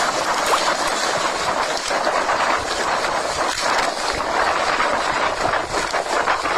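Typhoon wind and rain: a loud, steady rushing noise that swells and dips in gusts.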